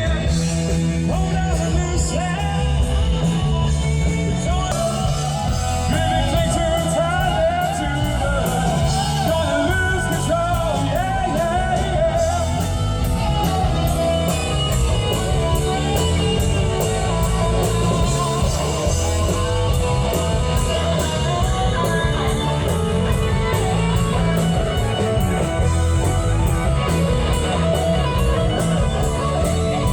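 Live rock band playing loudly, with a singer, electric guitar and a steady drum beat.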